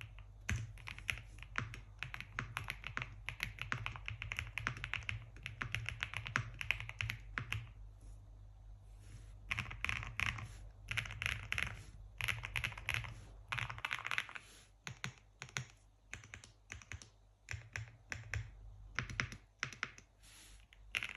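Typing on a QwertyKeys QK75N aluminium 75% mechanical keyboard in a deep-sounding build: fast continuous keystrokes, then quick flurries of typing, then slower scattered single key presses near the end.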